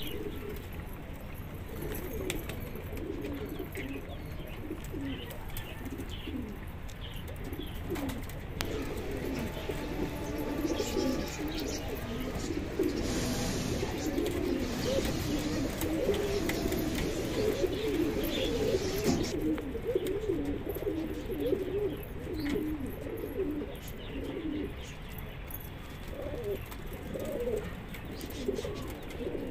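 Domestic pigeons cooing, many low coos overlapping one another without a break.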